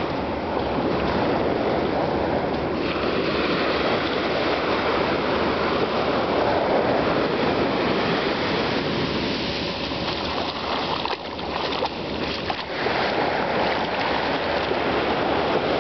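Ocean surf washing up a sandy beach: a steady rush of breaking waves, which dips briefly about eleven seconds in.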